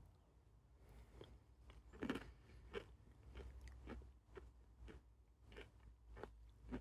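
Faint chewing of yogurt mixed with crunchy chocolate cookie pieces, a soft crunch about every half second, the loudest about two seconds in.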